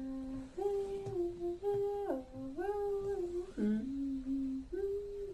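A single voice humming a slow Wiwa song melody of held notes that step up and down between a few pitches.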